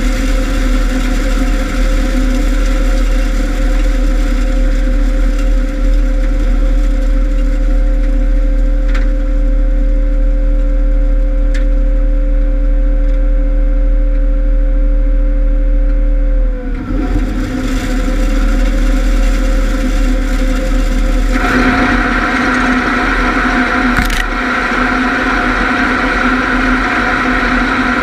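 Combine harvester running steadily, a deep rumble under a steady whine. About two-thirds of the way through the whine briefly drops in pitch, and a few seconds later a louder rushing whir joins in.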